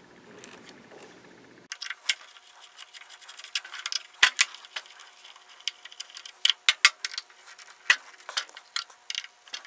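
Irregular sharp clicks and small taps of a screwdriver working T20 Torx screws out of a miter saw's housing and the loosened screws being handled. The clicks start about two seconds in.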